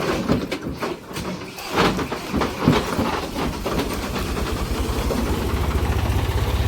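Diesel tractor engine running with a rapid, even low chugging, joined in the first few seconds by several loud clanks and knocks.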